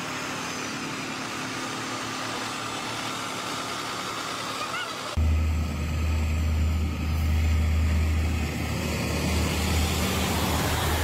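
Heavy truck on the road: a steady wash of road and engine noise, then about five seconds in an abrupt switch to a loud, deep diesel rumble as a MAN heavy-haulage tractor unit pulling a low-loader comes close.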